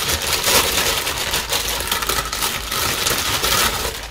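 Clear plastic packaging crinkling and crackling steadily as hands pull it off a new aluminium scooter cylinder, easing off near the end.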